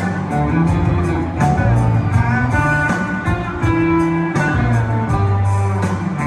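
Live country band playing through a concert PA, heard from the crowd, in a guitar-led passage over bass and a steady beat.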